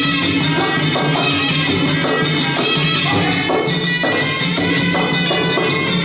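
Traditional Kun Khmer fight music: a reedy wind instrument, the sralai, plays a continuous melody over hand drums and small cymbals.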